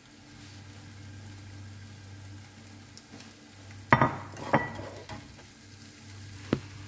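A slotted spatula scraping and knocking against a nonstick frying pan of scrambled eggs: a couple of sharp knocks about four seconds in and another near the end, over a faint steady sizzle and a low hum.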